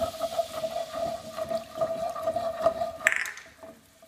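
A quarter cup of water poured into a hot frying pan of chicken drippings and spices, deglazing it: a steady tone with crackling and spattering for about three seconds, a short hiss, then dying down near the end.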